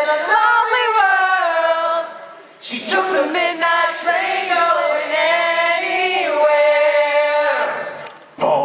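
A man singing a cappella into a microphone, with long held notes that slide in pitch, pausing briefly about two and a half seconds in and again near the end.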